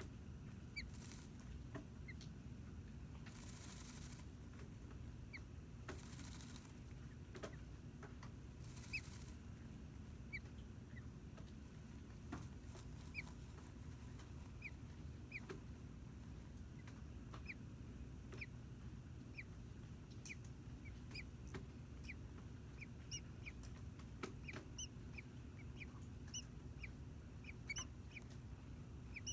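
American robin nestlings peeping faintly in the nest: short high peeps, scattered at first and coming about twice a second in the last ten seconds, over a low steady hum. A few brief soft hisses come in the first ten seconds.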